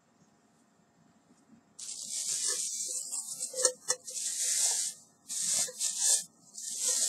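Clear plastic bag crinkling and rustling in several bursts, starting about two seconds in, as it is pulled off a metal camping pot, with a couple of sharp clicks partway through.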